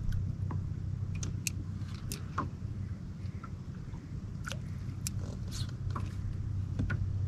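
A steady low hum with scattered light clicks and ticks throughout.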